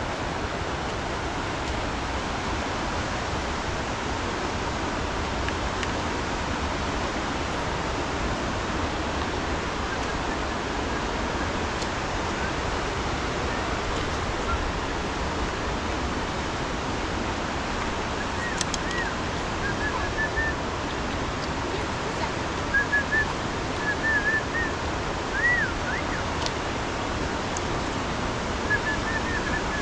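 Steady rush of a river in flood, with a run of short, high chirps in the second half.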